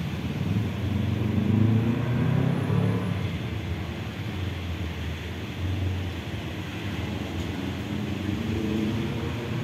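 Road vehicles driving slowly over a railway level crossing close by: a small box truck and cars with their engines running, loudest for the first few seconds as the truck passes.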